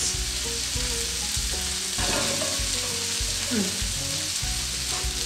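Onions and leeks sizzling steadily in a frying pan on a gas stove, with a few dull knocks.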